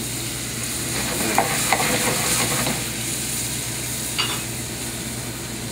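Lime juice sizzling as it hits a hot skillet of butter and tomato pan sauce, the sizzle swelling about a second and a half in and then settling to a steady simmer. A few light clicks come through, one near the end.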